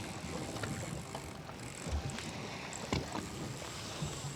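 Waves lapping and sloshing against the hull of a fishing boat stopped offshore, with a couple of soft knocks about two and three seconds in.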